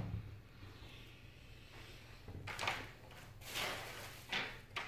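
Handling noise from a tablet being turned and held on its edge: several short scrapes and rubs of the casing against hands and the desk, in the second half.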